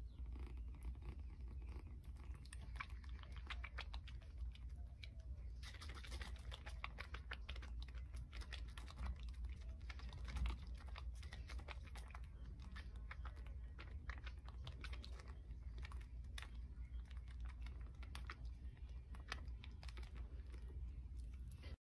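Kitten suckling from a plastic feeding bottle: faint, quick, irregular clicks of its mouth working the nipple, over a low steady hum.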